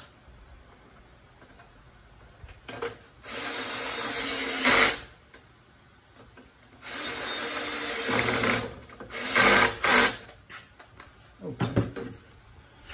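Power drill/driver running in short spells while driving in the screws that hold the recoil starter housing on a Briggs & Stratton mower engine: two steady runs of about a second and a half each, then a few shorter bursts as the screws seat.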